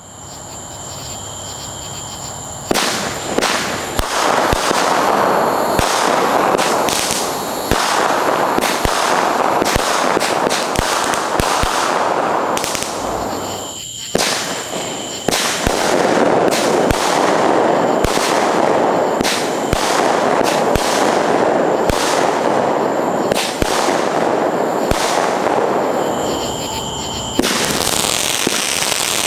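Fireworks going off in a long barrage: a dense, continuous crackle studded with many sharp pops and bangs. It drops off briefly about 14 seconds in, then starts up again.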